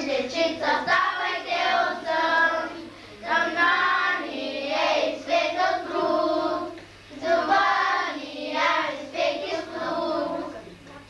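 A group of first-grade children singing a song together in unison, in phrases with short breaks between them.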